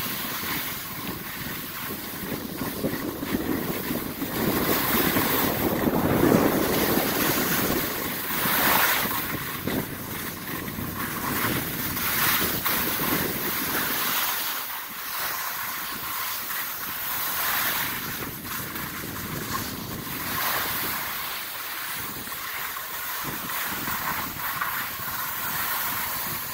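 Skis sliding and scraping over snow while skiing downhill, with wind rushing on the microphone; a steady hiss that swells and eases.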